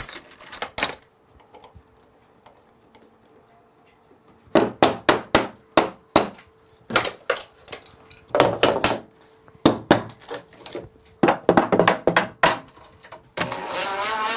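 Small metal tools and parts clinking and rattling against each other in quick bursts of sharp clicks, with a quiet pause of a few seconds between bursts. Shortly before the end a small electric motor starts running steadily.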